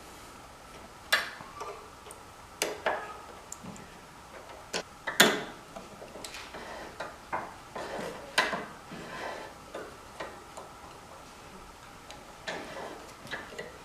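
Irregular sharp clicks and knocks of small metal and plastic parts and hand tools being handled while replacement handles are fitted back onto a Makita 2703 table saw, the loudest knock about five seconds in.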